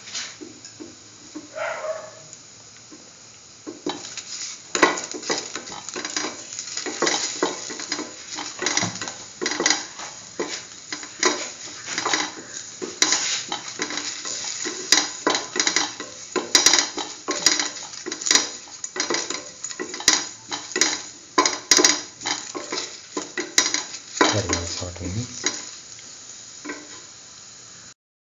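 Sliced onion, garlic and dried red chillies sizzling in oil in a stainless steel pan while a spatula stirs them, scraping the pan bottom in quick, irregular strokes. The stirring starts about four seconds in and stops suddenly just before the end.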